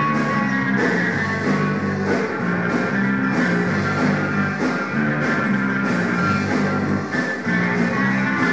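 Rock band playing live: electric guitar and bass holding sustained notes over a drum kit, with cymbals struck at a regular pace.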